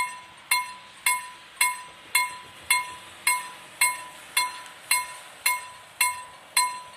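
Level crossing warning bell (KLD type) striking steadily, just under two strokes a second, each stroke a sharp ring that dies away before the next. It is the warning that a train is coming and the crossing barriers are lowering.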